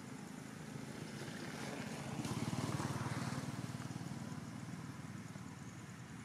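A motor engine running steadily with a low, rapidly pulsing hum that grows louder about two seconds in and eases off again, as a vehicle passing by would.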